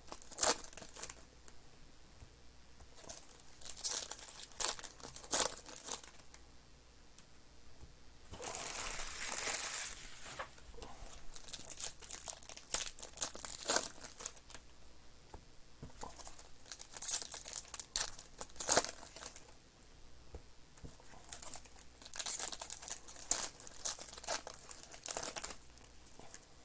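Plastic and foil wrapping on trading card boxes and packs being torn open and crumpled, in short irregular bursts of crinkling with one longer tear about a third of the way in.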